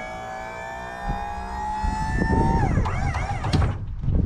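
Emergency-vehicle siren going by: a long wail with a slowly rising pitch, switching a little over halfway in to a fast up-and-down warble, over low knocks and rumble.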